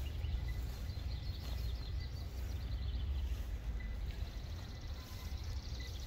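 Outdoor ambience: a steady low rumble with faint, high-pitched chirping trills during the first half.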